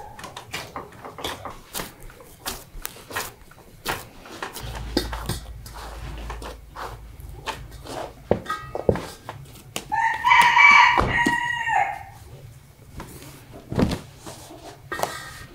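A rooster crows once, about two-thirds of the way through, a single call of about two seconds and the loudest sound here. Around it run soft irregular knocks and squelches of dough being kneaded by hand in an enamel bowl, with a low thump near the end.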